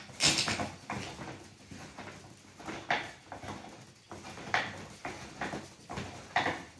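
Aluminium RV table leg being twisted free and lifted out of its floor mount: a few irregular short metal knocks and scrapes.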